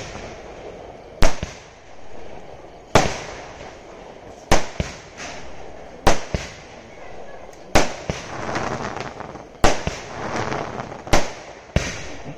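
Aerial fireworks bursting overhead: about eight sharp bangs, one every one and a half to two seconds, with crackling between them as the stars burn and fall.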